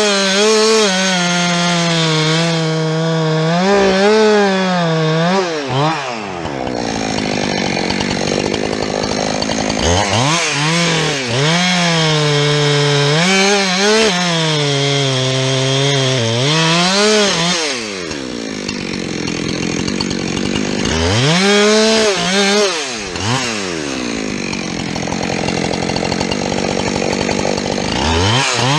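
Two-stroke chainsaw running hard in a cut, its engine pitch repeatedly dropping and picking back up as the chain loads and unloads in the wood. The chain is dull.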